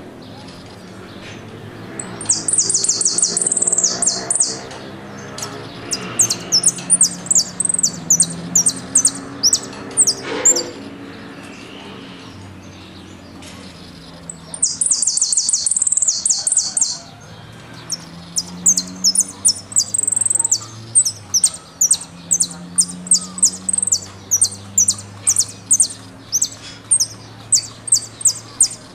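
Saffron finch (Argentine jilguero) singing: two fast, dense trills of about two seconds each, and between and after them runs of short, sharp, high whistled notes at about two a second. This is the 'golpe y pitadas' song style.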